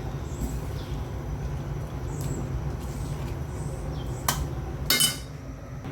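Cooking utensils clinking against a pot while food is transferred into it, with two sharp metallic clinks near the end over a steady low rumble.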